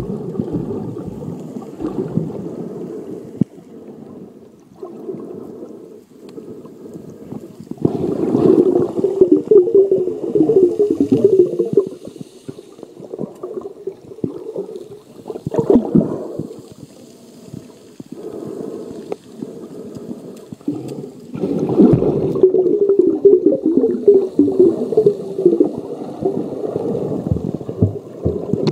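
Muffled underwater water noise heard through a waterproof phone case: water churning and gurgling, swelling louder twice for several seconds, with scattered knocks.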